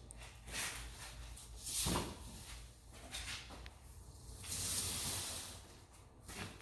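Tesla wall connector's charging cable being handled and plugged into a Tesla Model 3: a few scrapes and knocks, and a longer rustling hiss about five seconds in.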